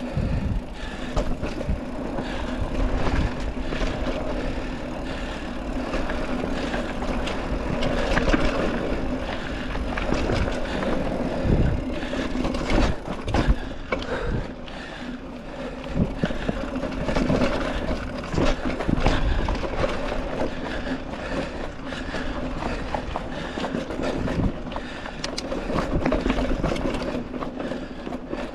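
A mountain bike riding a dirt trail on tubeless tyres, with wind on the microphone. The bike rattles, and frequent short knocks come from the bumps on the trail.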